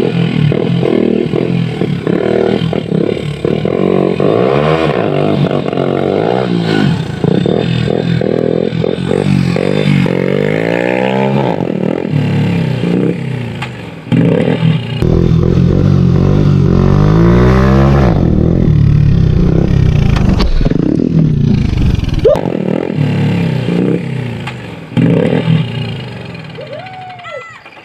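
Hero Honda single-cylinder motorcycle with an aftermarket M4 exhaust and no dB killer, loud, its engine note climbing and falling again and again as it is revved. The sound fades away over the last few seconds.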